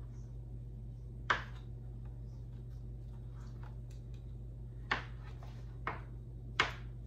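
Kitchen knife slicing a banana on a plastic cutting board: sharp taps of the blade hitting the board, one about a second in and three near the end, over a steady low hum.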